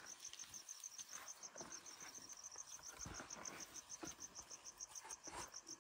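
Faint cricket chirping, an even run of rapid high pulses, about five a second, with a few soft knocks.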